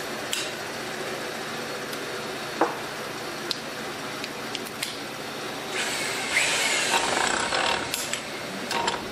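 Bolts and a steel differential ring gear being handled on a bench: a few light metal clicks, then a couple of seconds of scraping, rubbing metal about six seconds in, over a steady workshop hum.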